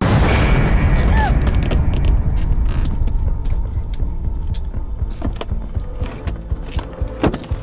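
Film sound effects of a sudden violent impact on a wooden raft: a loud boom and rush of noise cut in abruptly, followed by a jumble of knocks and thuds, settling into regular thuds near the end.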